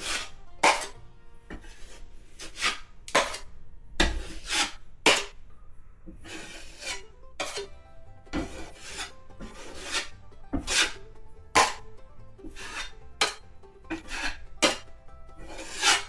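Repeated short rasping strokes across dried joint compound on a drywall patch, coming irregularly about once or twice a second.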